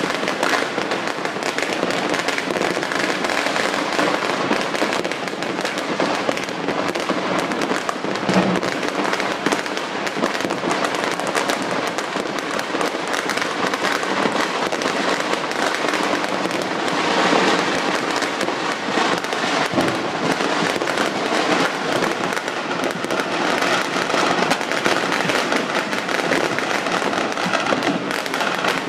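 Many fireworks and firecrackers going off at once across a city: a dense, unbroken crackle of pops and bangs with no lull, swelling slightly louder about seventeen seconds in.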